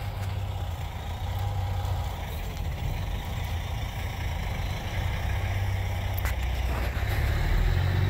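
Diesel engine of a Caterpillar 953D track loader running as the machine works the dirt, a steady low drone that grows louder near the end.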